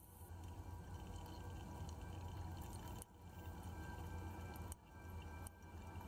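Faint ambient sound-art soundtrack: a steady low rumble with quiet held tones, broken by three sharp clicks in the second half.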